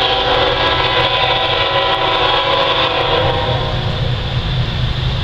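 Horn of an approaching Norfolk Southern freight locomotive sounding a held chord of several notes that fades out about three and a half seconds in, over a steady low rumble.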